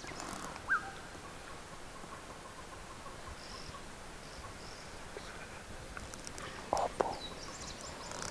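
Bush ambience: a faint steady insect drone with scattered bird calls, a short chirp a little under a second in and a falling high call near the end. Two sharp clicks or snaps come just before the end.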